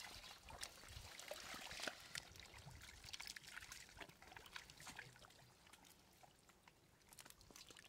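Faint splashing and trickling of shallow water, with many small wet splashes in the first few seconds that thin out and grow quieter later.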